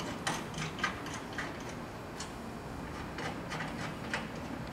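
Light metallic clicks at irregular intervals as the bolts of a truck-deck rail clamp are tightened with a wrench: a cluster in the first second or so, a few more later, over a faint steady hum.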